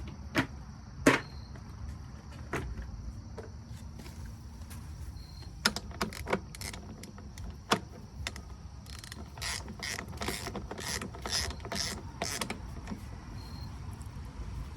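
Scattered mechanical clicks and knocks, then a regular run of ratcheting clicks, about two or three a second, for some three seconds in the second half, as a new lawn mower drive wheel is fitted.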